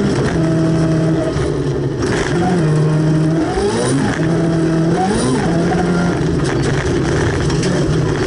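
Volvo 240 rally car's engine heard from inside the cabin, running hard under load on a gravel road. The revs hold steady for stretches, then climb and drop sharply about three times, over a steady rush of tyre and gravel noise.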